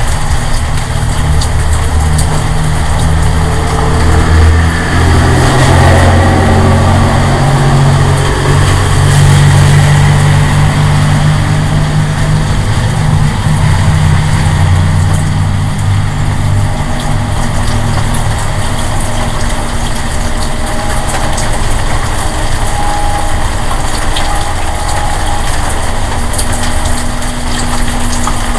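A loud, low droning hum with a steady engine-like pitch, swelling to its loudest for several seconds in the first half and then easing off somewhat.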